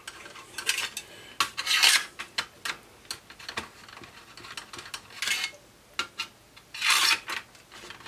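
A 3 mm hex key turning in the captive screws of a Mac Pro CPU heatsink to loosen them. Light metallic clicks come through throughout, with a few short scraping rubs, the longest about two seconds in and about seven seconds in.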